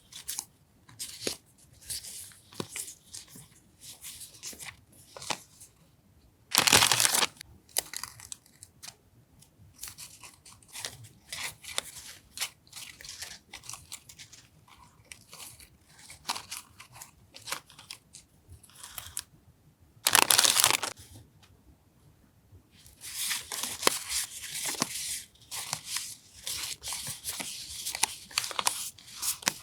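Paper and plastic stationery packaging rustling and crinkling as items are unpacked and handled, with small scattered clicks. Two brief loud bursts come about 7 and 20 seconds in, and there is a denser run of rustling near the end.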